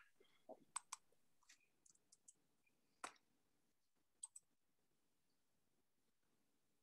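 Near silence broken by about half a dozen faint, short clicks at irregular intervals, the loudest about three seconds in.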